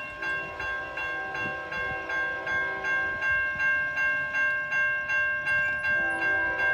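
Railroad grade crossing warning bell ringing steadily, about three strikes a second, as the crossing activates for an approaching train. A train horn begins sounding about six seconds in.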